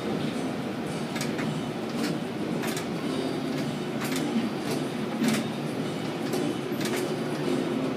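Container gantry crane running: a steady low mechanical rumble with sharp clicks or clanks coming about once a second at irregular spacing.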